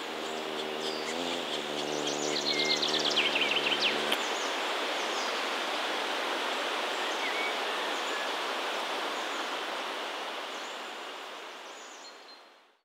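Woodland ambience: a steady hiss of background noise with a few short, high bird calls in the first four seconds, over a low hum that stops about four seconds in. The whole fades out to silence near the end.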